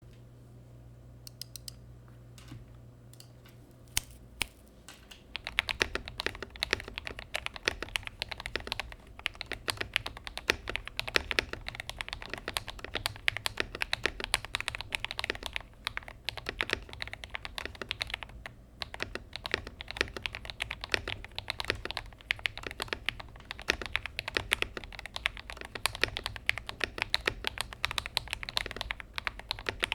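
Typing on a Gamakay LK67 mechanical keyboard fitted with lubed Akko Rose Red linear switches: a few single key presses, then fast continuous typing from about five seconds in.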